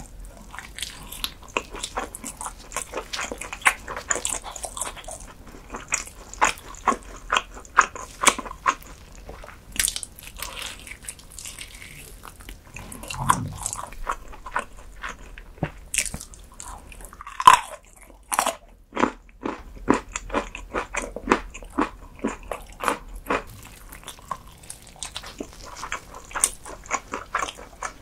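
Close-miked ASMR eating: a person biting and chewing food, a dense run of short crunchy, sticky clicks, with one louder sharp click about two-thirds of the way through.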